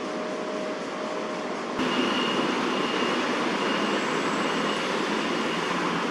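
Steady city background noise, the rush of distant traffic, stepping abruptly louder about two seconds in. A thin, steady high tone sits faintly over it after the jump.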